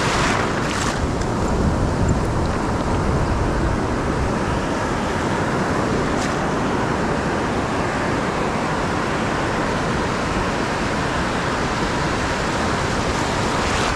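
Steady rush of ocean surf breaking on a beach, with wind noise.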